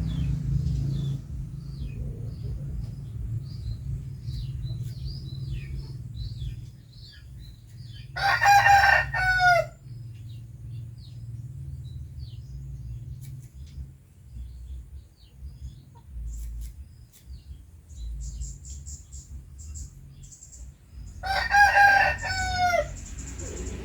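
A rooster crowing twice, once about eight seconds in and again about thirteen seconds later, each crow ending on a falling note. Small high bird chirps sound in the first few seconds, over a low rumble.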